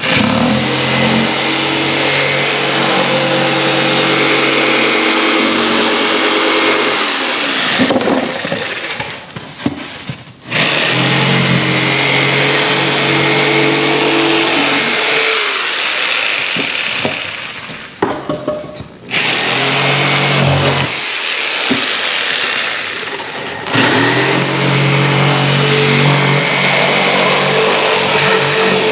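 Electric jigsaw cutting through thick rigid foam board, loud. It runs in several long stretches with short pauses between them as the cut is steered.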